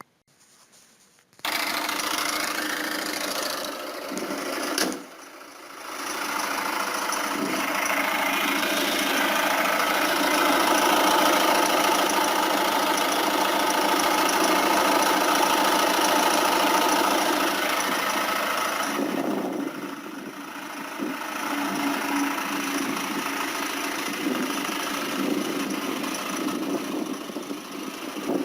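Peugeot 407 1.6 HDi diesel engine running with the abnormal engine noise that the owner is asking about. It comes in about a second and a half in, dips briefly around five seconds, and is quieter over the last third.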